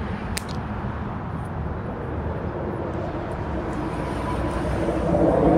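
Road traffic noise: a motor vehicle's engine and tyres, growing steadily louder over the second half as it approaches.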